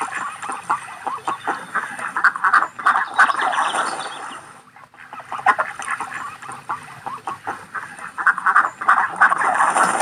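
A flock of ducks quacking, many rapid overlapping calls, with a short break about halfway through.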